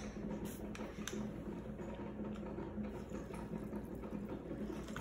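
Water poured from a bottle into a glass measuring jug of oats, a faint trickle in the later part, over a steady low hum.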